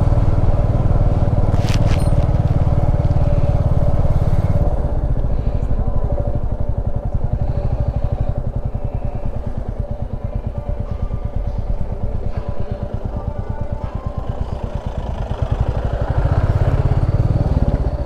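Motorcycle engine running as the bike is ridden, with an even firing pulse. It eases off partway through and picks up again near the end.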